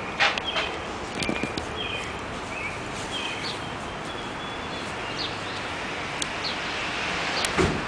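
Steady outdoor background noise with birds chirping now and then, and a few short knocks near the start and near the end.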